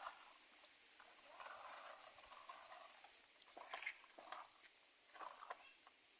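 Near silence, with a few faint, scattered clicks and knocks through the second half.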